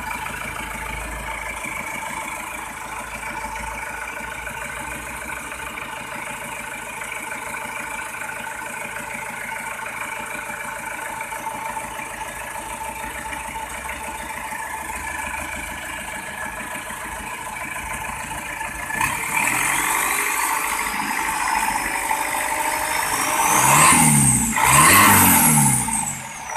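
Freshly overhauled Isuzu Panther diesel engine running, idling steadily, then revved twice near the end, the pitch rising and falling each time.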